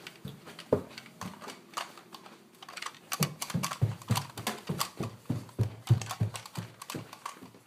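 Quick footsteps thudding on a hardwood floor, about three or four a second through the second half, mixed with knocks and rubbing from the handheld phone itself.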